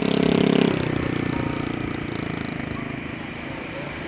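Airbus A320 airliner's jet engines on the landing rollout, a loud droning that swells to a peak in the first second and then eases to a steadier, lower drone as the aircraft slows with its spoilers up.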